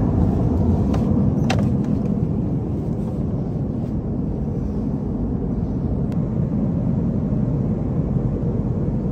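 Steady low rumble of airliner cabin background noise inside an Airbus A330, with a couple of faint clicks.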